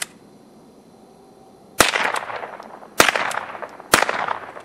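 Remington Model 12 .22 pump-action rifle fired three times, about a second apart, each shot trailing off in a long echo.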